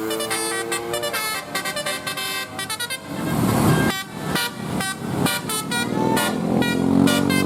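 Bus 'telolet' musical air horn playing quick, jumpy strings of notes. From about three seconds in it is joined by a louder noisy rush.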